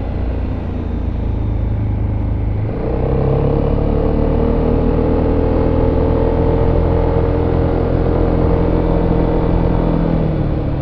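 VOGE SR4 MAX's single-cylinder engine through its stock exhaust, heard on board while riding. About a third of the way in the throttle opens and the engine note gets louder and climbs slowly as it pulls, then drops back near the end as the throttle closes.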